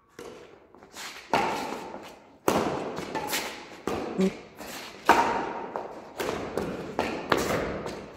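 Badminton rackets striking a shuttlecock in a fast rally: a sharp crack roughly every second, some loud and some fainter, each followed by a short echo off the courtyard walls.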